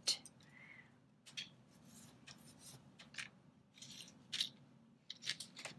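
Faint, scattered rustling and scraping handling noises as white cotton gloves are pulled off and bare hands handle a small wooden block holding a silicone mold.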